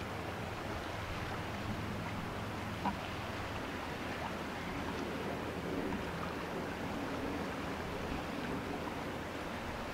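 Steady low drone of passing ships' engines over a hiss of water and wind, with a short bird call about three seconds in.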